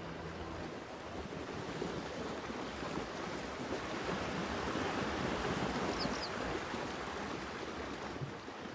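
A steady rushing noise of outdoor ambience, like wind or moving water, swelling toward the middle, with a faint brief high chirp about six seconds in.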